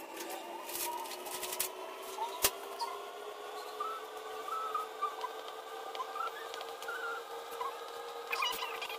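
A steady hum of several pitches drifting slightly together, with faint squeaky chirps over it and a few sharp taps, the loudest about two and a half seconds in, as a plastic scraper cuts bread dough against the counter.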